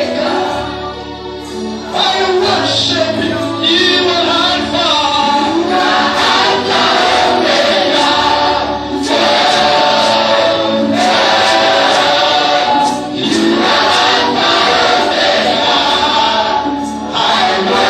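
Gospel worship music with a choir singing over sustained low accompaniment.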